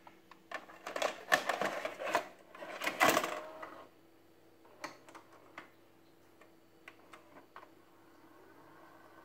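JVC HR-J217 VHS player's tape mechanism clattering and clicking as it works, then a few scattered clicks. Near the end a faint steady whine sets in as the tape rewinds.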